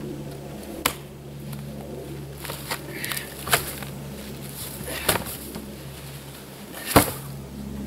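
Wooden pallet being worked loose by hand from packed snow: about five sharp knocks and cracks a second or two apart, the loudest near the end.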